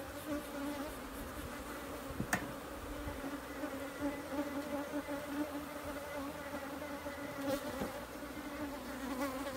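A mass of Africanized honey bees buzzing around hives being smoked: a steady low hum with a higher overtone. There is one sharp click about two seconds in.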